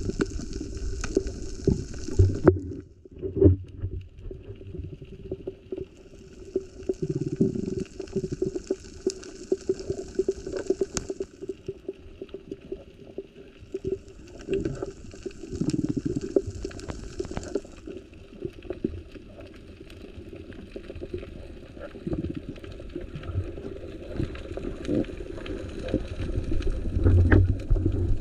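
Muffled underwater rumble and churning water picked up by a camera below the surface, with many short clicks scattered through it and a few louder surges.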